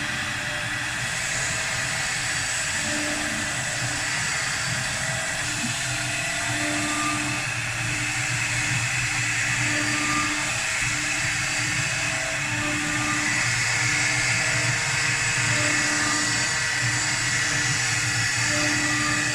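4-axis CNC wood lathe running, its spindle turning the workpiece while the cutter shaves wood, a steady noisy whir. A low tone swells and fades every second or two, and the sound grows slightly louder towards the end.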